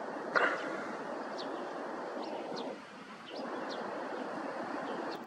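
Steady rushing jet noise from a twin-engine airliner taxiing at low power, with small birds chirping over it. A short loud knock comes about half a second in.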